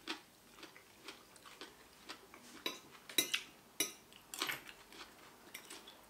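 A fork and spoon clicking and scraping against a plate as noodles are twirled: scattered light clicks, the sharpest few about three to four seconds in.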